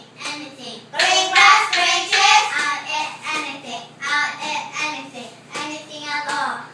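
A group of young children singing together, with bursts of voices rising and falling in a chant-like rhythm.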